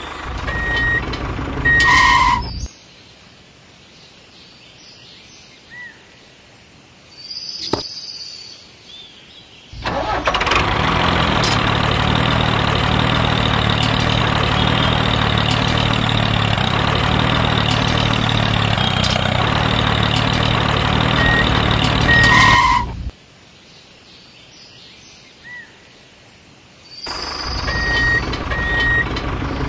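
Tractor engine running steadily for about thirteen seconds, starting and stopping abruptly. Short beeps are heard near the start and again near the end.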